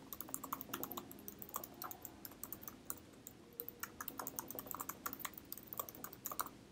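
Faint typing on a computer keyboard: a steady run of irregular keystroke clicks as an email address is typed.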